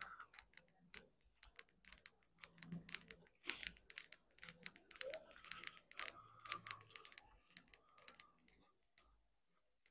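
Faint, irregular clicks and taps, with a few faint voices in the distance.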